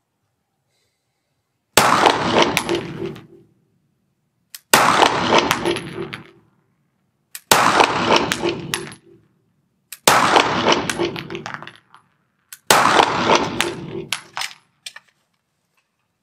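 Five pistol shots fired at a slow, steady pace, about two and a half to three seconds apart, each a sharp crack that rings on and dies away in the hard-walled hall of an indoor range.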